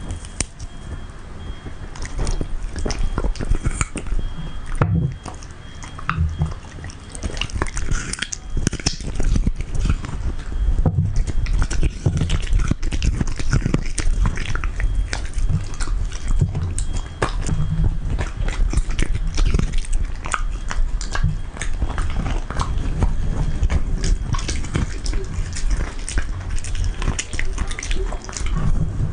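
A Samoyed chewing and crunching pieces of fresh coconut meat close to a microphone: a dense, irregular run of sharp crunches and wet mouth clicks.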